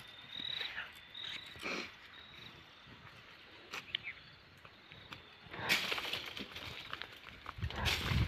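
An insect chirps in short, repeated high calls over the first second or so. Then, from a little past halfway, leafy branches of a ber (jujube) tree rustle and crackle loudly as a long stick thrashes them to knock down the fruit.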